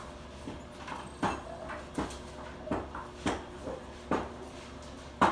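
Irregular kitchen clatter: dishes and utensils handled and set down at a counter, a sharp knock every second or so, the loudest near the end.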